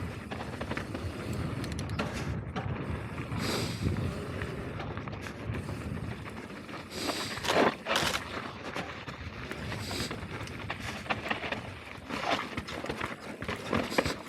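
Mountain bike riding down a dirt trail: a steady low rumble of tyres and rushing air, broken by sharp rattling knocks from the bike over bumps every few seconds.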